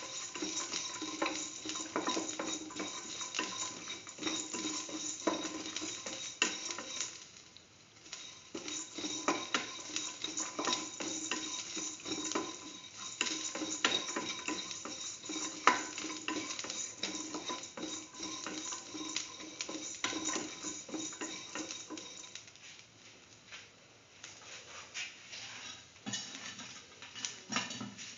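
A utensil stirring and scraping shallots, garlic and spices around a stainless steel pan, with irregular metallic scrapes and knocks over a steady sizzle of frying oil. The stirring pauses briefly about eight seconds in and grows sparser and quieter near the end.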